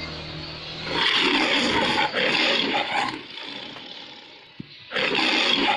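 The MGM lion roaring twice: a long roar starting about a second in and lasting about two seconds, then a second, shorter roar near the end.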